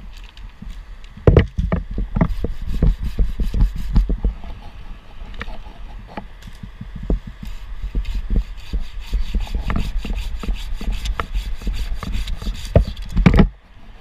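Hand pruning saw cutting through a small ash branch with quick, even back-and-forth strokes from about eight seconds in, ending about thirteen seconds in. Before that come scattered knocks and rustles of wood.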